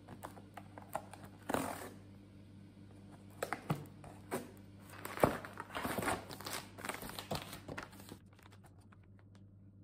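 Cardboard box torn open and plastic packets pulled out and handled: tearing cardboard and crinkling plastic in a string of sharp rustles and taps that stops about eight seconds in, over a faint steady hum.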